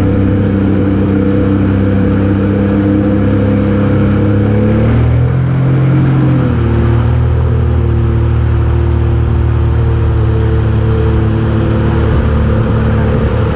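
Motorboat engine running at a steady speed under the rush of the wake. About five seconds in the engine note dips and shifts for a second or so, then holds steady again.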